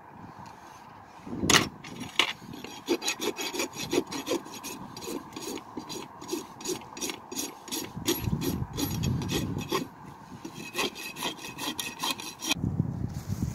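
Farrier's rasp filing a horse's front hoof in quick back-and-forth strokes, about three a second, in two runs with a short pause between them. A sharp knock comes just before the first run.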